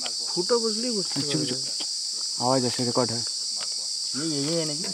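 A steady, high-pitched chorus of insects droning without a break, with people's voices talking quietly over it in short phrases.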